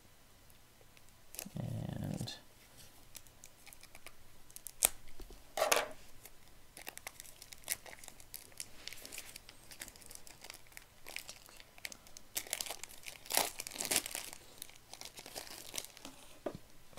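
Clear plastic shrink wrap being torn and peeled off a deck of cards, crinkling and crackling in irregular bursts, with a few sharp snaps.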